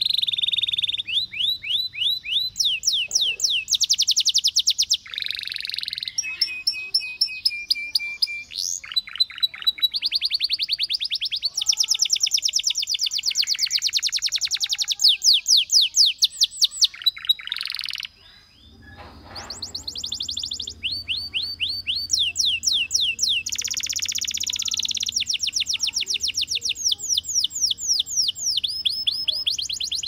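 Canary singing: long, fast trills of rapidly repeated falling whistled notes, switching from one trill to the next, with a brief break about eighteen seconds in.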